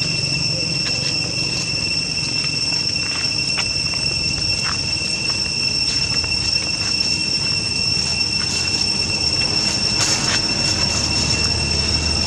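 Insects droning in a steady, high-pitched chorus that holds one pitch throughout. Faint scattered rustles and clicks of dry leaves sound over it.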